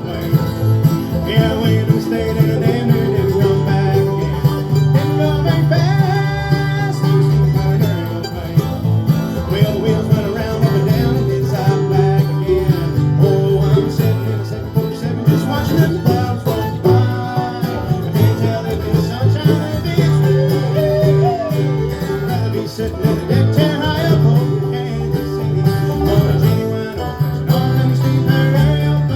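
Bluegrass band playing live: banjo and guitar picking fast over a steady bass line, in an instrumental break without singing.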